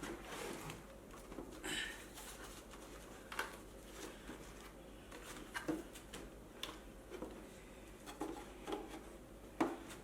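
Faint, scattered clicks, knocks and scrapes of hands working parts of an electric unicycle's wheel and tyre into place, about one every second or two.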